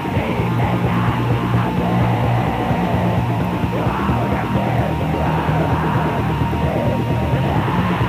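Raw, lo-fi black metal from a 1996 rehearsal demo: distorted guitars and drums under harsh yelled vocals, at a steady loud level.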